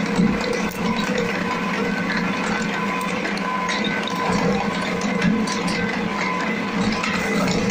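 Small twin-shaft claw shredder running steadily, its drive giving a constant hum, with irregular crackling and snapping as the toothed cutter discs tear up Tetra Pak cartons and plastic packaging.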